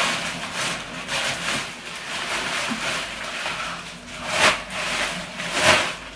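Bubble wrap and clear plastic wrapping crinkling and rustling as a small item is unwrapped by hand, with two louder crackles in the second half.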